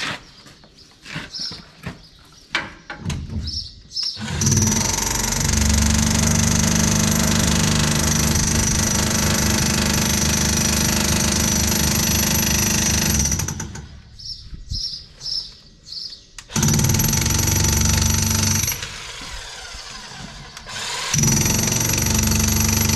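Impact wrench hammering away to turn a threaded part on hydraulic equipment, with a high whine over the hammering. It runs in three bursts: a long one of about nine seconds from about four seconds in, then two of about two seconds each, with clanks of handling in between.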